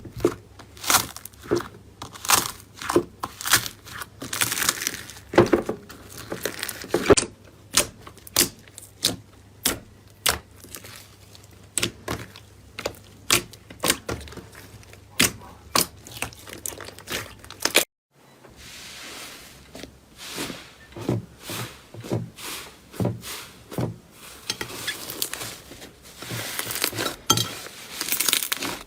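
Slime being squeezed, poked and stretched by hand, giving an irregular run of sharp pops, clicks and crackles. The sound cuts off briefly about 18 seconds in, then similar popping and crackling resumes.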